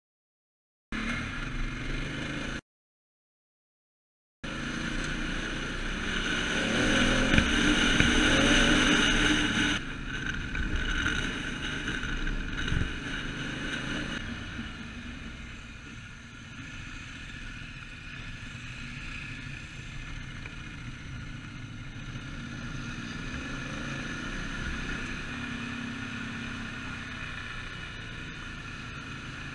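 Adventure motorcycle being ridden on a gravel road, engine running with wind and road noise on the bike-mounted camera. The sound cuts out twice near the start, is loudest a few seconds into the ride as the bike gets going, then settles to a steadier, quieter run.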